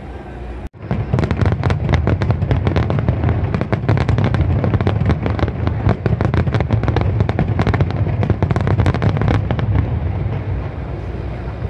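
Aerial fireworks in a rapid barrage: many shells bursting in quick succession with crackling over a deep rumble. It starts abruptly about a second in and thins out near the end.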